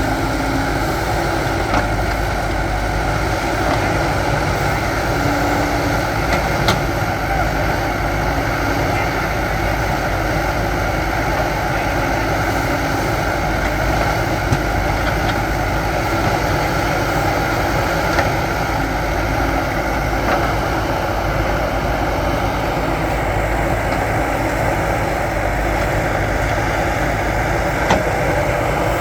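Backhoe loader's diesel engine running steadily, with a few brief sharp knocks.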